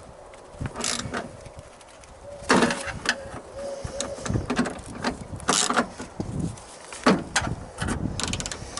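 Plastic door membrane and duct tape crinkling and rustling as they are pulled by hand, with irregular clicks and knocks from a screwdriver and metal parts inside a car door. The loudest bursts of crinkling come about two and a half, five and a half and seven seconds in.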